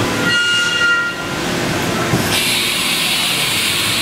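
Haas VF-3 vertical machining center doing a tool change: a short high whine early on, then a click about two seconds in followed by a steady hiss, over the constant din of running machines.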